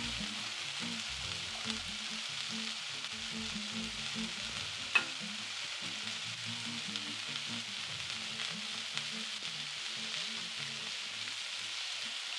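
Red cabbage, carrots and lentils frying in oil in a pot: a steady sizzle, with a single sharp click about five seconds in.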